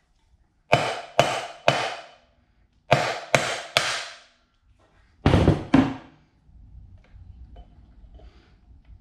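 Brass hammer striking at the flywheel of a 1979 Johnson 15 hp outboard to knock it loose for removal. There are eight sharp metallic blows in three groups of three, three and two, each ringing briefly, then faint handling noise.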